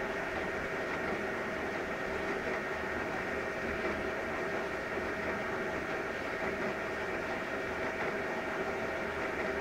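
Canon imagePROGRAF iPF770 large-format inkjet printer running while it prints and feeds out a photo: a steady mechanical whir with a few faint steady tones.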